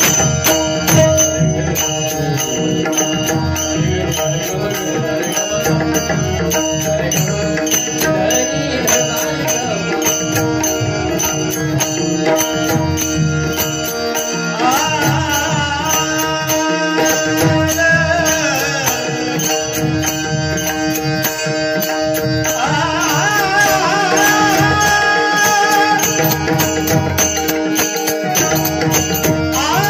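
Marathi devotional bhajan music: steady held instrumental notes over a hand-drum rhythm. A male voice sings a melodic line that slides up and down from about halfway through, and again for the last several seconds.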